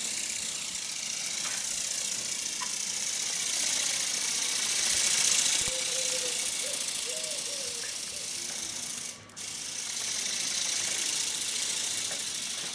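Electric RC ornithopter (Phoenix E-Bird) in flight: the steady mechanical buzz of its motor and wing-flapping gearbox, cutting out for a moment about nine seconds in.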